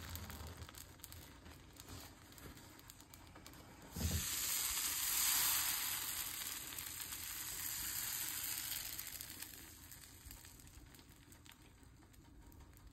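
Appam batter sizzling in a hot appam pan as the pan is tilted and swirled to spread it. The hiss is faint at first, rises suddenly about four seconds in as the batter runs over the hot sides, and fades away over the next several seconds.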